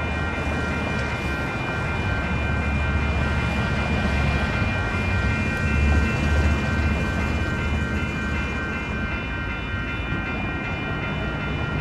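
Wisconsin Southern local freight train rolling slowly away: a steady low rumble with several steady high-pitched tones ringing over it.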